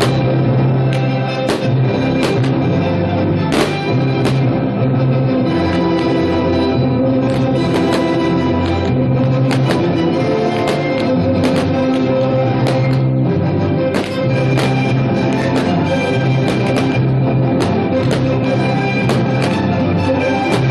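Loud music with drums and a changing bass line.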